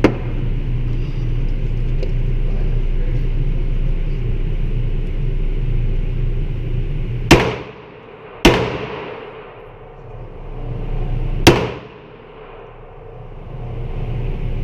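Three gunshots at a shooting range, the first two about a second apart and the third about three seconds later, each a sharp crack with a short echoing tail. Before the first shot there is a steady low rumble.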